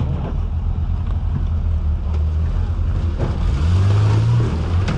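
FJ40-based off-road trial buggy's engine running at low revs and revving up briefly about three and a half seconds in, with a few knocks.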